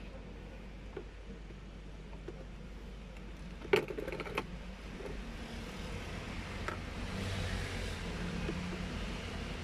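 A brief clatter of metal clinks and rattles about four seconds in, from tools and parts handled during work dismantling a car's air-conditioning system, over a steady low hum. From about seven seconds, a fuller steady noise with a low hum grows louder.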